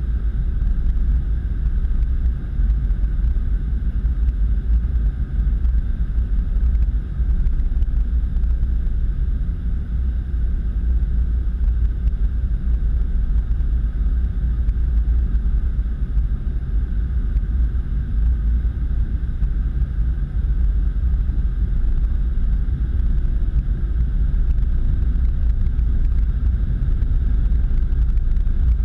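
Steady low rumble inside an automatic car wash bay, without a break or change.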